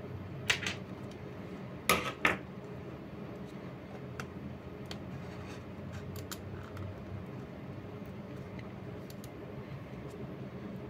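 Plastic shell of an Attack Shark X6 computer mouse creaking as it is handled: a few short, sharp creaks in the first couple of seconds, then only faint small ticks.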